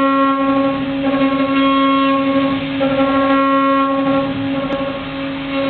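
ISEL ICP 4030 CNC milling machine running a cut: a loud, steady spindle whine with a stack of overtones, its higher tones changing every second or so.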